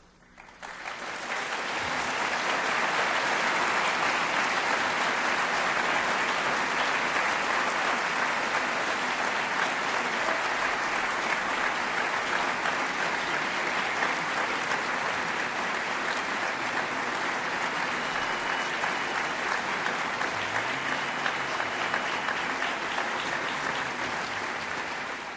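Audience applauding, swelling in over the first couple of seconds, holding steady, then dropping away at the very end.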